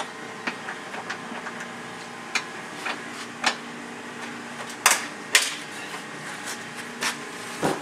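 Scattered clicks and knocks from hand tools and bolt hardware being worked on a side-by-side's door panel, with two sharper knocks about five seconds in, over a steady low hum.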